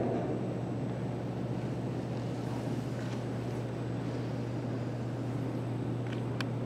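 Glass-roofed elevator car descending its shaft: a steady low hum with a rushing noise. A few light ticks come near the end.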